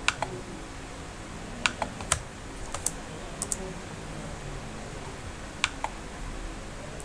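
Scattered clicks of a computer keyboard and mouse, a few sharp clicks at a time, often in pairs, with pauses of a second or more between them.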